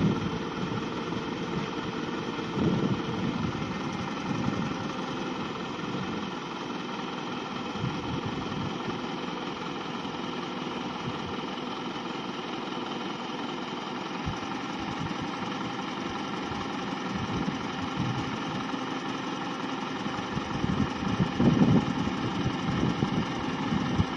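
Toyota crane truck's engine idling steadily, with brief louder spells about three seconds in and again near the end.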